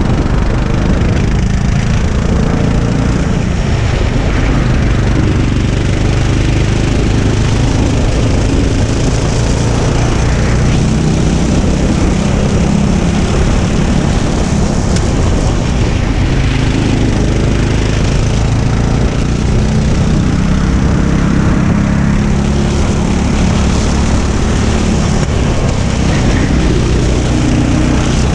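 Go-kart engine running at racing speed close to the microphone, its pitch rising and falling with the throttle through the corners and straights.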